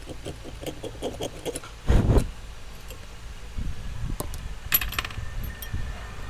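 Small metal tools and parts clinking and rattling on a repair bench, with one loud knock about two seconds in, over a low steady hum.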